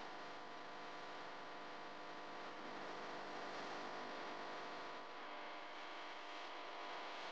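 Steady hiss with a faint electrical hum inside a moving car: cabin road noise picked up through the windshield-mounted camera's microphone.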